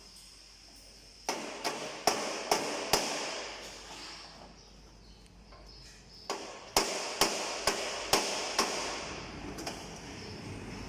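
Hammer blows on jeep body sheet metal during panel repair: two runs of sharp strikes, about two a second, with a pause between.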